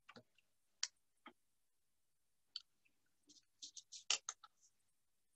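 Faint clicks and taps of thin wooden sticks being handled and laid down on a tabletop. A few taps come singly, then a quick cluster about four seconds in.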